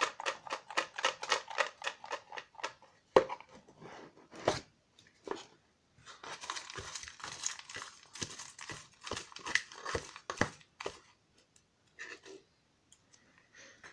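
Folded paper slips rattling in a small cardboard box as it is shaken, with a couple of sharp knocks of the box, then crinkling and rustling as a hand rummages through the slips to draw one.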